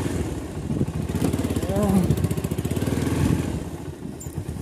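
Motorcycle engine running at low revs with a rapid, even exhaust pulse, as the bike is ridden slowly along a slippery mud track. A brief voice sounds about two seconds in.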